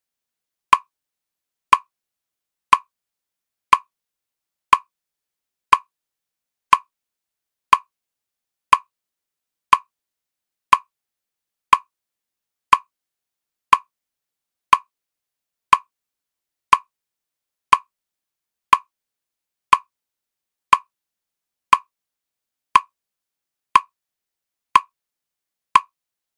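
A single short tick repeating steadily about once a second, with silence between the ticks.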